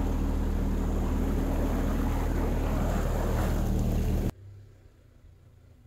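ATV engine running steadily as it wades through water on a flooded bog track, with water swishing around the machine. The sound cuts off abruptly about four seconds in.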